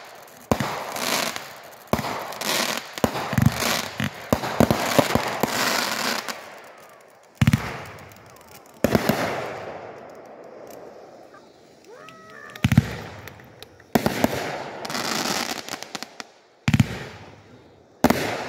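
A multi-shot consumer firework fires from the ground. For about the first seven seconds it makes rapid launch bangs and crackling bursts. After that come single loud bangs a second or more apart, each trailing into crackle, with a quieter gap about halfway through.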